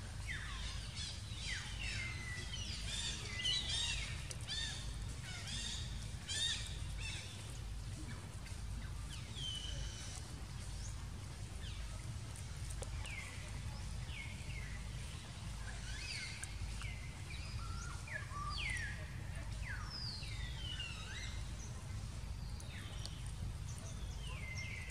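Birds calling in short, falling chirps, busiest in the first several seconds and scattered after, over a steady low rumble of background noise.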